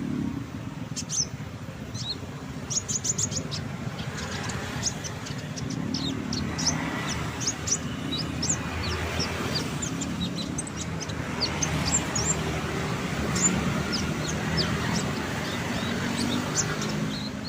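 Common iora (konin) singing: a busy run of short, high chirps and quick whistled notes with a steady low hum underneath.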